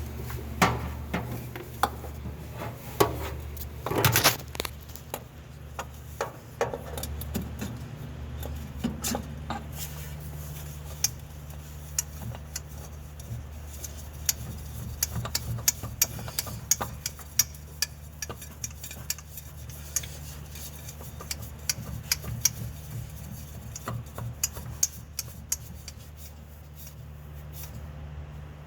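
Scattered metallic clicks, taps and clanks of hands and tools working at an oil filter, fitting it onto the engine, with a few sharper knocks in the first few seconds. A steady low hum runs underneath.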